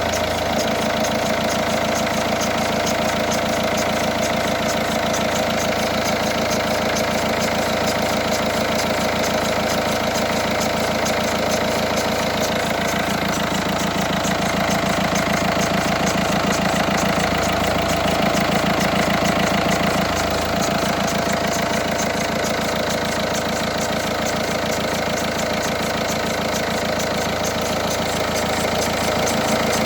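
Peugeot 308 SW 1.6 HDi four-cylinder turbodiesel idling steadily while cold, with a strange noise that the owner cannot place and suspects comes from the belts or a bearing. The noise is heard only when the engine is cold.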